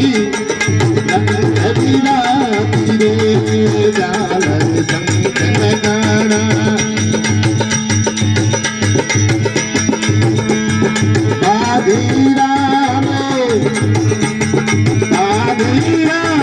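Live devotional bhajan music: a harmonium holding a steady drone under a wavering melody, with a hand drum keeping a fast, even beat and some singing.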